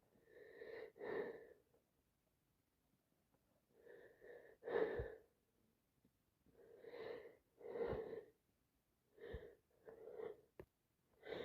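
A person with a head cold breathing heavily through a congested nose: short in-and-out breaths in pairs, every two to three seconds, the stuffy breathing of sinusitis between sneezing fits.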